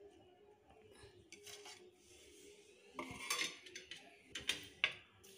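A metal spoon clinking against a metal cooking pot: quiet scraping at first, then several sharp clinks in the second half.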